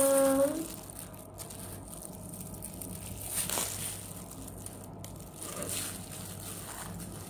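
Plastic ice cream wrapper and a disposable plastic glove crinkling as they are handled: scattered crackles, a little louder about three and a half seconds in and again near six seconds.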